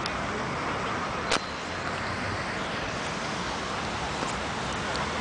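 Steady, noisy outdoor beach ambience, a continuous wash with no clear single source, broken by one sharp click about a second and a half in.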